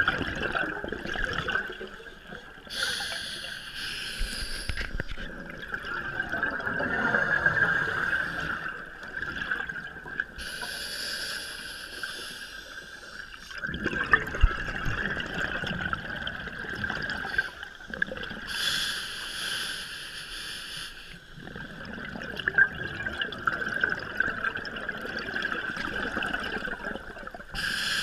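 A scuba diver breathing underwater through a regulator: bursts of exhaled bubbles come about every eight seconds, four times, over a steady underwater hiss.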